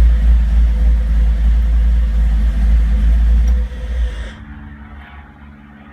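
Car engine idling roughly, with a heavy low rumble. About four seconds in, the sound drops sharply and only a fainter low hum remains.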